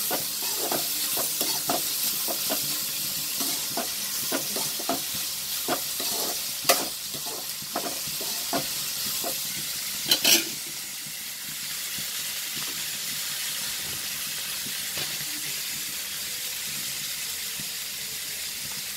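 Sliced onions sizzling in hot oil in a metal kadai as they sauté. A metal ladle stirs them, scraping and knocking on the pan about once or twice a second. About ten seconds in there is a sharper clatter, then the stirring stops and only the steady frying sizzle remains.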